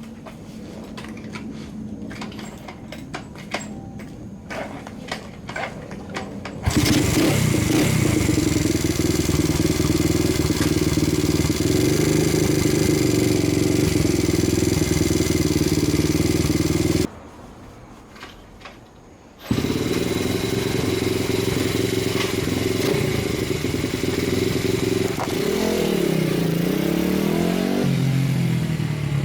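Honda Monkey's freshly rebuilt single-cylinder engine, quiet clicks and knocks at first, then running loudly from about seven seconds in. It drops out briefly in the middle, comes back, and is revved up and down near the end.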